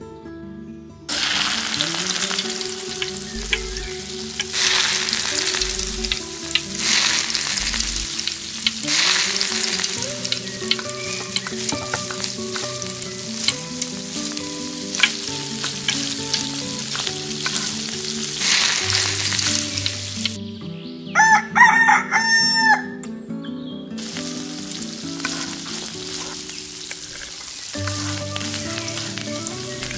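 Pieces of fish frying in hot mustard oil in a miniature steel pot, a steady sizzle that starts about a second in, stirred and turned with a small fork. A rooster crows about two-thirds of the way through, the loudest sound.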